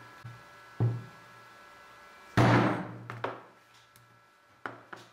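Knocks and thuds from hands handling a small workpiece on a cutting mat: a light knock about a second in, the loudest about two and a half seconds in with a short noisy scrape after it, then a few lighter taps near the end, over a steady low hum.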